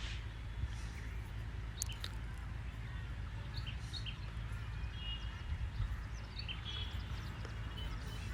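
Steady low hum with scattered short, high chirps of small birds and a few light clicks.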